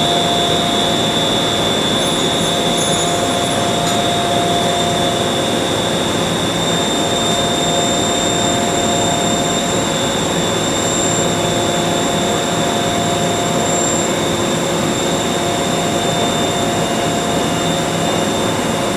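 Mollart 4-spindle gundrilling machine running steadily while it drills holes in a pellet die, a constant mechanical hiss with several steady high whines.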